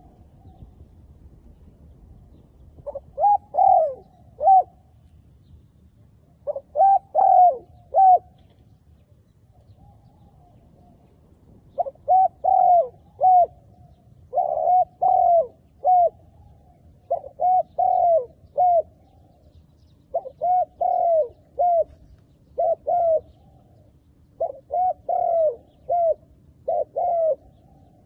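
Spotted dove cooing: about nine short phrases of three or four arched coos each, repeated every few seconds. A fainter coo answers near the start and again about ten seconds in.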